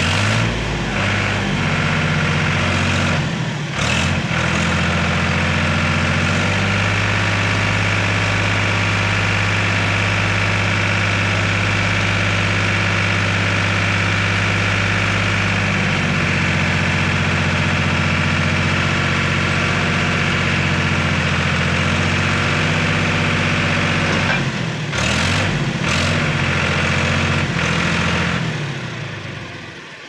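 Powertrac 439 DS tractor's diesel engine running steadily under load while the hydraulic tipper raises the loaded trailer bed; the engine note shifts a few times and is throttled back near the end.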